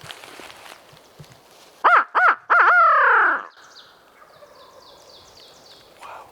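Wild turkey tom gobbling loudly about two seconds in: three quick notes running into a longer falling tail. Afterwards a small bird chirps faintly in a quick series of high notes.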